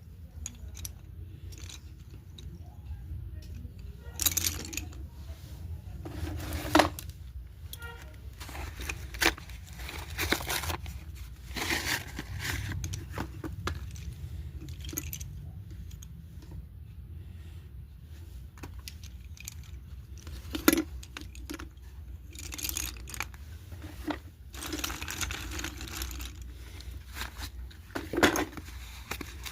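Slate pencil packs being opened and handled: irregular bouts of tearing, crinkling and crunching, over a low steady hum.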